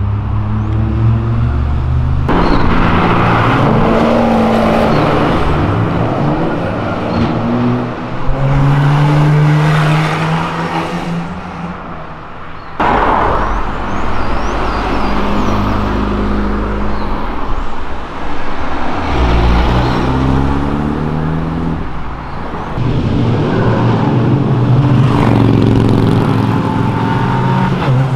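Cars accelerating past one after another, engines revving up and dropping in pitch as they shift gears, with abrupt changes between passes.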